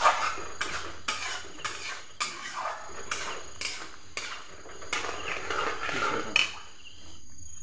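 Flat metal spatula stirring and scraping thick masala gravy around an aluminium kadai, about two strokes a second, ending with a sharp clack about six seconds in.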